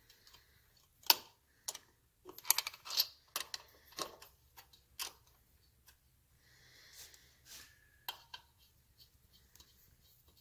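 Sharp metal clinks and taps of a wrench and bolts being worked on a Triumph 650 twin's rocker box, a quick cluster of them in the first half, then softer rubbing and handling sounds.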